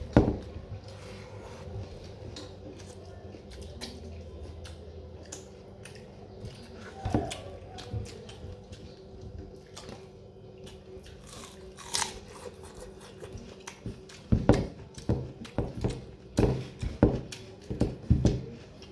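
Close-up eating sounds: chewing and crunchy bites, with fingers mixing rice on a steel plate. The crunching gets busier and louder over the last few seconds, over a faint steady hum.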